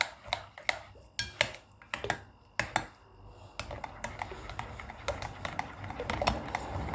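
Metal spoon stirring a runny custard mixture in a porcelain bowl, clinking and scraping against the bowl in irregular taps. The taps come sparsely at first and turn into steadier, busier stirring after about three and a half seconds.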